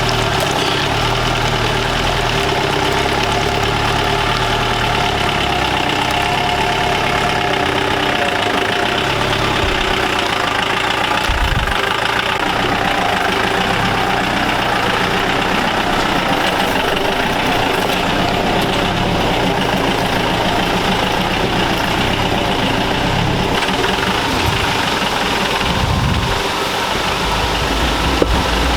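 Mahindra Marshal off-road jeep's engine running steadily as the jeep drives along a rough off-road dirt track, with a few short knocks from the bumpy ride.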